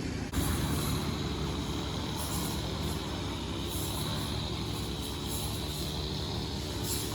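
Vehicle engine running steadily: a low rumble with a faint, steady high whine over it.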